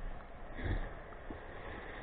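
Steady rushing of river water, with a soft low bump about two-thirds of a second in.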